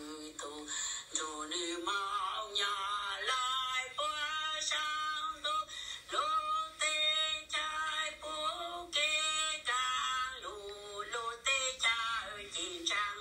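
One high-pitched human voice in short phrases, each held on a fairly level pitch with brief glides and gaps between them, like chanting or sung speech, with no instruments under it.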